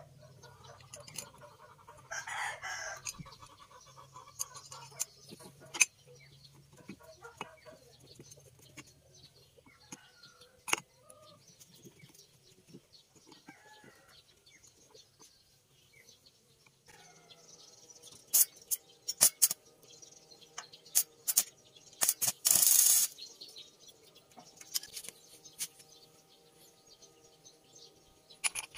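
Metal clicks and knocks of a wiper motor's steel gearbox plate, screwdriver and sprocket being handled on a wooden workbench, thickest in the last third, with a scraping rattle of about a second as the loudest event. Chickens cluck and a rooster crows near the start.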